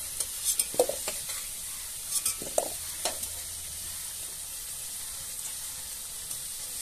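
Potato pieces sizzling steadily in hot mustard oil in a wok. A metal ladle scrapes and clinks against the wok several times in the first three seconds as the fried potatoes are stirred and lifted out.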